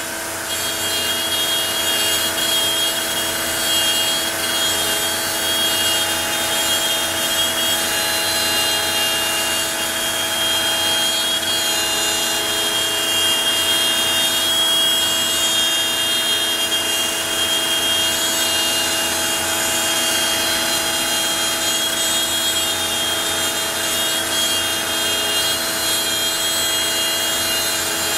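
A Onefinity CNC router's spindle running steadily while its bit cuts out the cat shapes: a constant high whine over cutting noise, with a short dip in level right at the start.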